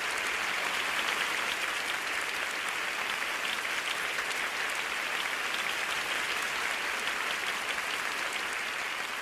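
A large theatre audience applauding, a dense, steady clatter of many hands clapping.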